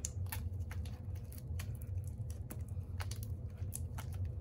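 Small irregular sticky clicks and squelches of glue-based slime, made fluffy with shaving cream, being stretched and kneaded by hand, over a steady low hum.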